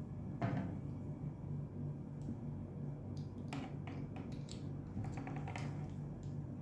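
Hand crimping tool clicking as an RJ45 connector is crimped onto a UTP cable: a few scattered sharp clicks, with a quick run of small clicks about four seconds in.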